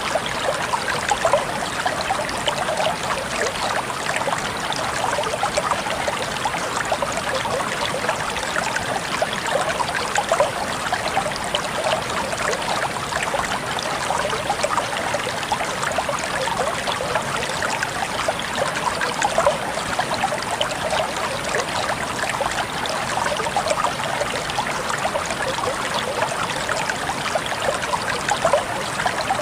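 Calm water flowing steadily, a constant rush of small splashes with no pauses or changes.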